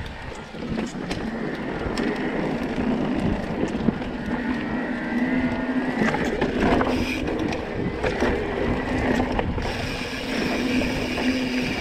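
Electric mountain bike riding over a dirt singletrack: tyres rolling and crunching on dirt and roots, the bike rattling and knocking over bumps, over a steady whine from the e-bike's motor.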